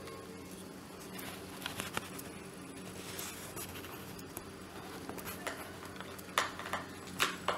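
Small screwdriver working a screw out of a dry iron's plastic handle: faint scraping and clicking of metal on plastic, with a few sharper clicks after about six seconds, over a low steady hum.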